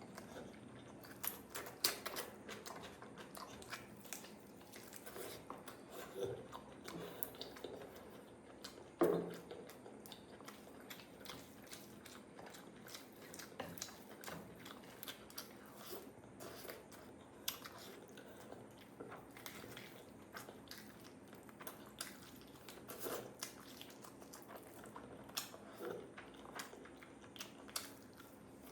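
A person chewing and biting into a curry-and-rice meal, making many small irregular mouth clicks and smacks, with a louder one about nine seconds in.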